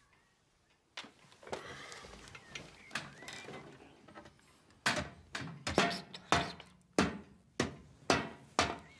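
Laptop keys typing, then from about halfway through a run of sharp knocks, just under two a second: a plastic toy being banged on a tabletop.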